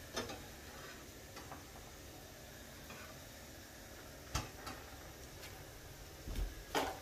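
Scattered light clicks and knocks of kitchen utensils and dishes over a faint steady background hiss, the loudest knock about four seconds in and another near the end.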